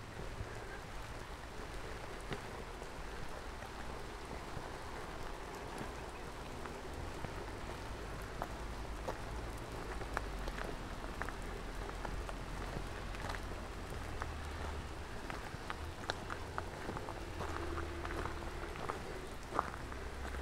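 Steady rain falling, with many individual drops clicking sharply close by.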